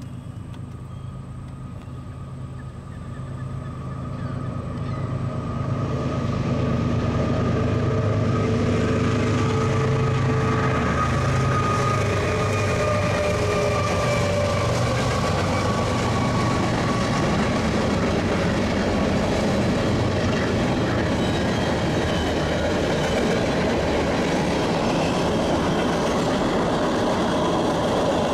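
CSX freight train approaching and crossing a railway overpass bridge. The diesel locomotives' engines grow louder over the first several seconds, then the freight cars roll across the bridge with a steady rumble and clatter.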